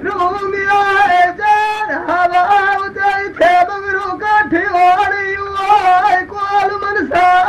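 A high singing voice in a Punjabi dhola folk song, drawing out long held notes with wavering ornaments that slide down at the end of each phrase and break off every second or so. It comes from an old cassette recording.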